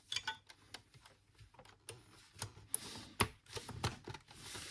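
The plastic dome case of an iMac G4 being fitted back onto the machine by hand: a scatter of light clicks and knocks, with some rubbing between them.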